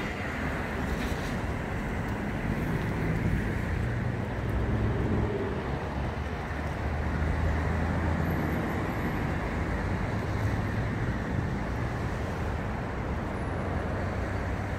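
Road traffic passing: a steady low rumble of cars that swells a little as vehicles go by.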